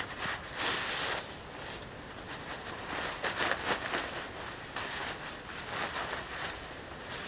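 Synthetic sleeping bag and its nylon stuff sack rustling and swishing in several bursts as the bag is pulled out of the sack and shaken loose.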